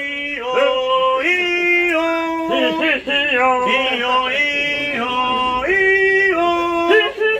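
A man singing solo, holding long notes and stepping up and down between them.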